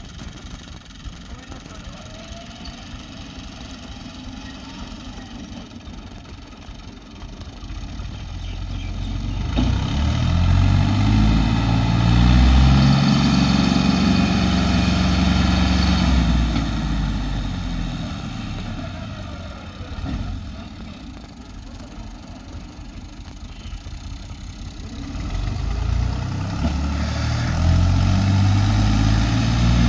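An engine running, rising from a low idle about eight seconds in, easing back down around twenty seconds, and picking up again near the end.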